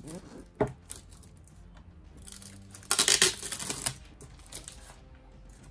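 A clear acrylic display case knocks once as it is set down, then its clear plastic wrapping rustles loudly for about a second and a half as it is pulled off, two to four seconds in.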